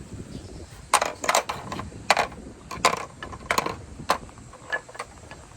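Marble run balls clacking against one another and the track in a series of irregular sharp clicks.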